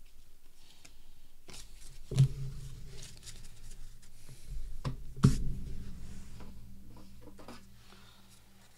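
Baseball cards being handled on a desk: light rustling and flicks of card stock, with two sharp knocks on the desk about two and five seconds in, each leaving a brief low ring.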